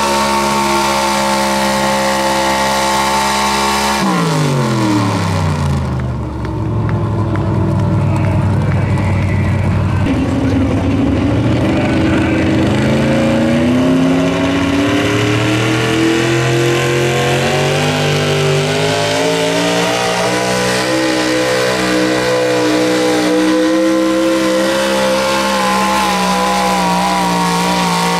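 Pulling-truck engines at full throttle under load against a weight-transfer sled. The first truck's engine note drops sharply about four seconds in. From about ten seconds in, a modified gas pulling truck's engine climbs steadily in pitch as it drags the sled down the track.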